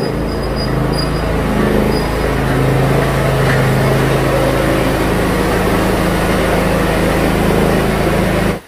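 Small engine of a ride-on mower running steadily, then shut off abruptly near the end.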